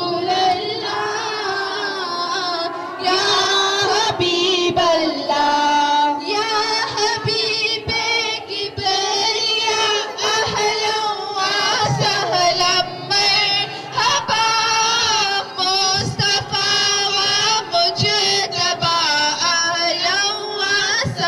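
Women singing a naat, a devotional song in praise of the Prophet, with the voices carrying on without a break.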